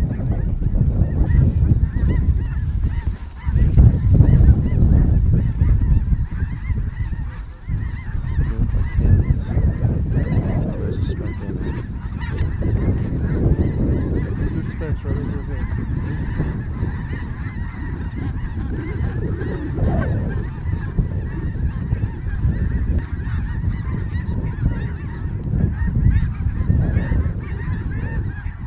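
Continuous clamour of a large flock of snow geese calling overhead, many overlapping honks, over a low rumbling noise.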